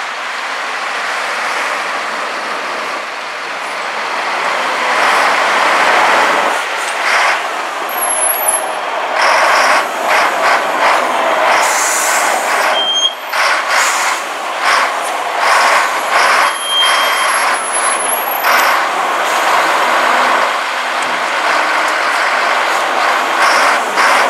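Caterpillar 966E wheel loader's six-cylinder diesel engine running, its sound rising and falling, with a few brief high-pitched squeals near the middle.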